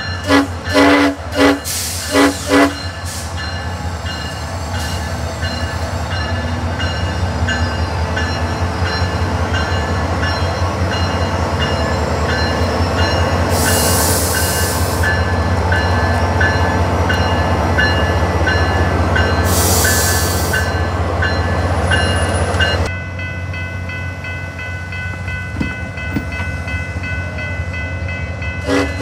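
SunRail diesel locomotive sounding a few short horn blasts, then its engine running with a steady low drone while a bell rings about twice a second. Two brief hisses of air come through partway along.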